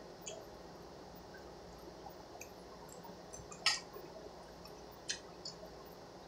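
Quiet eating sounds: wet chewing and mouth smacks with a few short clicks of a metal utensil against a stainless steel pot. The sharpest click comes about three and a half seconds in, and a smaller one a little after five seconds.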